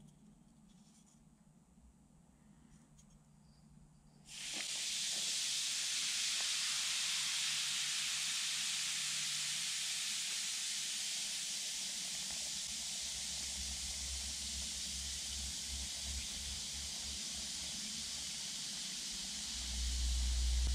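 A Lush Lucky Cat bath bomb fizzing as it dissolves in water: a steady hissing fizz that starts suddenly about four seconds in. A low rumble joins near the end.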